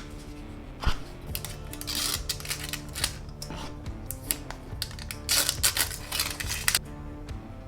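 Rustling, tearing and clicking of a new MacBook Air's cardboard box and wrapping being opened, with a sharp click about a second in and a busier stretch of rustling near the end, over soft background music.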